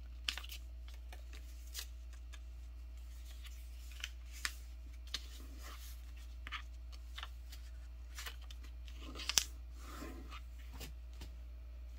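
A sheet of paper being folded and creased by hand into a paper airplane: irregular crisp rustles and scrapes, the sharpest about three-quarters of the way through, over a steady low hum.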